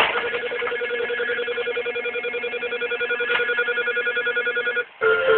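Arcade punch-bag machine's electronic ringing tone after a hit, a rapid, even trill on one pitch that breaks off for a moment near the end and starts again.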